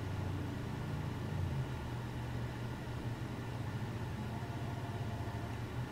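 A steady low hum of background noise, with no distinct events.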